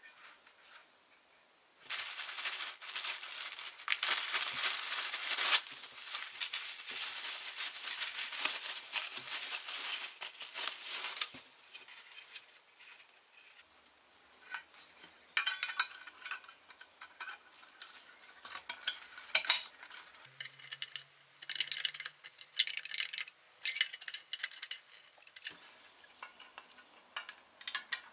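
Small steel toy parts and tools clinking and scraping against each other during assembly: a dense stretch of scraping and rattling from about two seconds in, then scattered clicks and taps.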